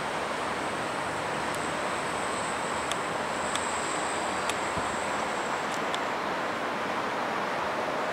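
MRT Pink Line monorail train, a rubber-tyred Alstom Innovia Monorail 300, passing at a distance: a steady rush of noise, with a faint high whine that comes in about a second and a half in and fades a few seconds later. Wind on the microphone runs under it.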